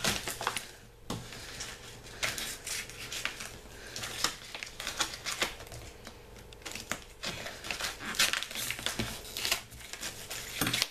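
Scissors snipping and cutting at a parcel's paper wrapping, amid irregular crinkling and rustling of the packaging. There are many scattered sharp clicks.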